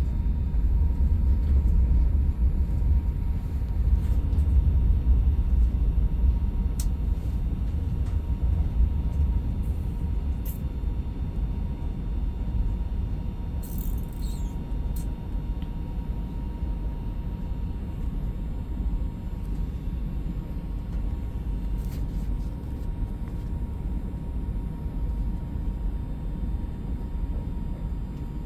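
Train running with a steady low rumble that eases off slightly partway through.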